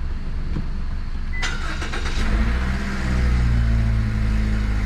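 Toyota iA's 1.5-litre four-cylinder engine being started: a click about a second and a half in, a short crank, then the engine catches a little after two seconds and settles into a steady idle.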